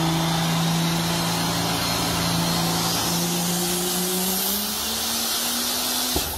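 A diesel pickup truck's engine running flat out on a chassis dyno: a steady drone that climbs in pitch over its last couple of seconds, then cuts off suddenly with a sharp pop about six seconds in, as the engine blows and catches fire.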